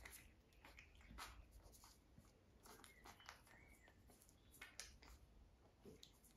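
Faint scratching and scuffling of young puppies clambering about in a fleecy dog bed, with a couple of faint high squeaks about three seconds in.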